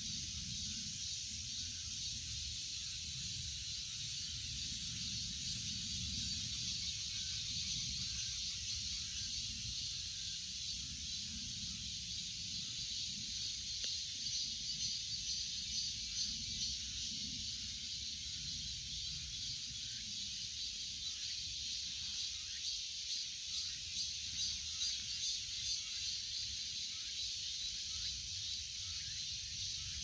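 Cicadas singing: a steady, high, hissing drone that takes on a faint pulsing rhythm from about halfway, over a low rumble.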